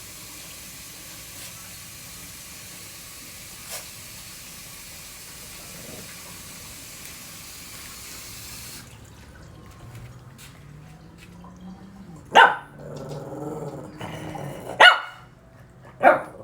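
Tap water running steadily, shut off about nine seconds in; then a dog barks three times, loudly, a second or two apart.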